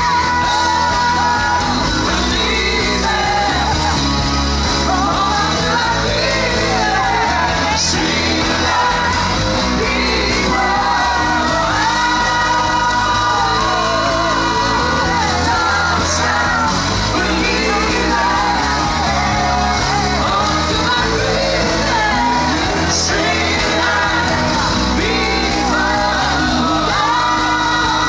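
Pop-rock music with a lead singer, with shouts and yells over it.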